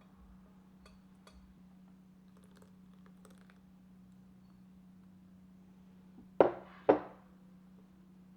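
Kitchenware being handled: a few light clicks, then two sharp knocks about half a second apart near the end, like dishes set down on a counter, over a steady low hum.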